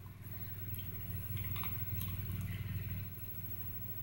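A steady low hum, a little louder in the middle, with a few faint clicks about one and a half seconds in.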